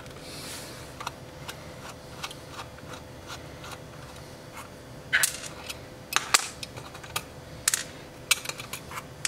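Small metallic clicks and taps from a screwdriver and screws on the sheet-metal case of an altitude encoder being taken apart. The clicks are sparse and faint at first and come louder and closer together from about five seconds in.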